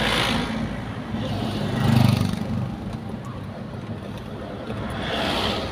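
Road traffic heard from inside a car in slow town traffic: engine and tyre noise, with a louder engine sound swelling and fading about two seconds in.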